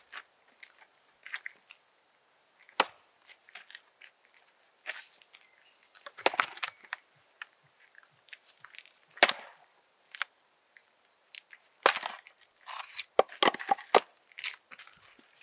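Hultafors Ekelund hunting axe wedged in a big log, knocked down against a wooden chopping block to split the log: several sharp wooden knocks a few seconds apart, with a quick cluster of them near the end.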